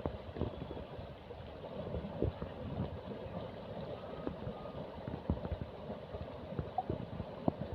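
River water gurgling and sloshing, with many irregular small splashes and knocks.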